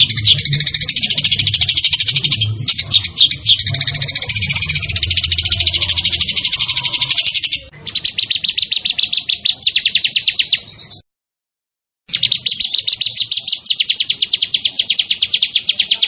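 A songbird sings a rapid, sharp, rolling trill of quickly repeated high notes, in long unbroken phrases. It stops suddenly for about a second, about eleven seconds in, then starts again.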